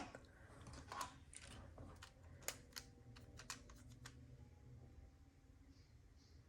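Faint, irregular clicks and light metallic clinks of small costume jewelry pieces being handled and turned over, about a dozen over the first four seconds, a few leaving a brief ring.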